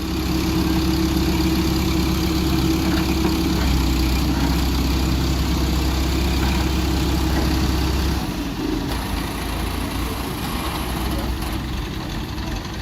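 Heavy truck engine running steadily, its note dropping and easing off about eight seconds in.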